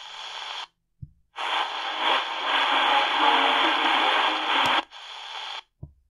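C.Crane CC Skywave 2 shortwave radio hissing with static and weak, indistinct signals through its speaker as it is tuned up the 49-metre band. The audio cuts out twice as it steps between frequencies, with a soft knock in each gap.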